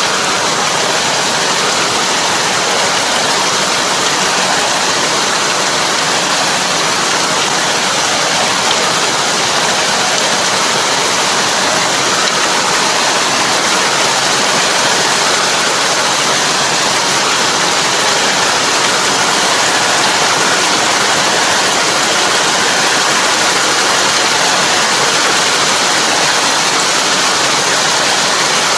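A Kobashi puddling harrow churning muddy water in a flooded rice paddy: a steady rushing, splashing noise.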